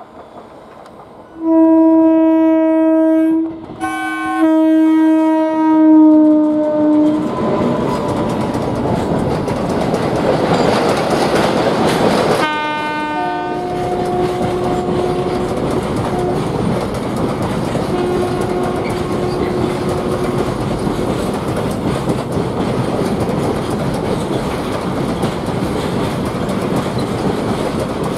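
Electric locomotive air horn sounded in a long blast with a brief break near four seconds, followed by the rumble of the train passing. Another horn sounds about halfway through, then the steady rumble and clickety-clack of container freight wagons rolling past.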